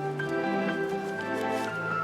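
Soft background score music: sustained held notes that shift slowly from one to the next.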